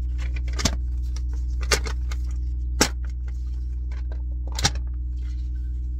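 Steady low hum of an idling semi truck, with four short sharp handling clicks spread through it.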